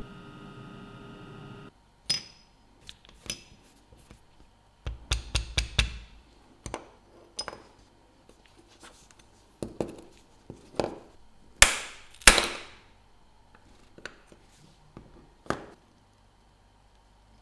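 Small metal watchmaking tools clicking and tapping against a watch's case and parts, an irregular string of sharp taps with a cluster around five to six seconds in and two louder, ringing knocks about twelve seconds in.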